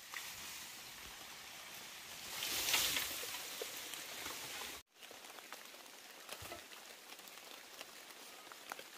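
Outdoor forest ambience: a soft hiss with light patter and rustling that swells briefly before five seconds in, then cuts out abruptly. It resumes quieter, with scattered small ticks.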